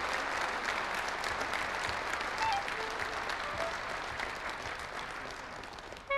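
Audience applauding, slowly dying down, until a clarinet starts playing right at the end.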